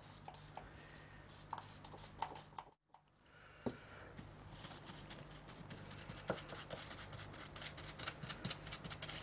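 Faint small handling sounds: a few soft clicks as the isopropyl plunger bottle is used over a circuit board, then a small ESD brush dabbing and scrubbing a solvent-soaked Kimwipe on the board, a quick run of light pats through the second half. A steady low electrical hum runs underneath, and the sound drops out briefly about three seconds in.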